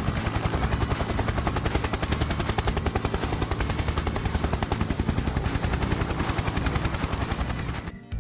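Helicopter rotor sound effect: a fast, steady chopping of several beats a second that stops just before the end.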